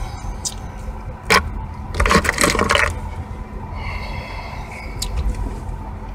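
Handling noise from a hand-held phone inside a vehicle cab: a sharp knock about a second in, then a scraping rustle lasting about a second, over a steady low rumble.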